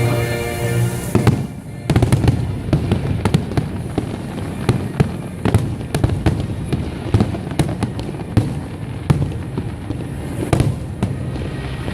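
Fireworks display: a rapid, irregular run of firework bangs and crackles, starting about a second in. Music plays over the first second.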